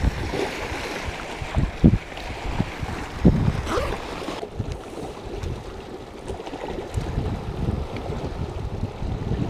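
Wind buffeting the microphone, with clothing rubbing and bumping against it in irregular low thumps and rustles, over surf washing on the rocks.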